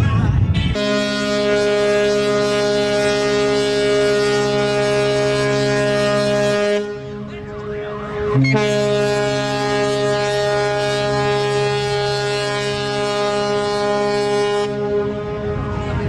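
The MS Windward's ship horn sounding two long blasts, a deep chord of several tones held about six seconds each, with a gap of under two seconds between them.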